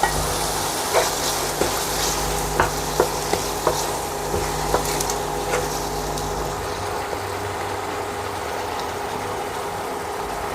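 Tomatoes and spices sizzling in hot oil in a pan while being stirred with a spoon, the spoon knocking against the pan every second or so for the first several seconds. A low steady hum runs underneath and stops about two-thirds of the way through.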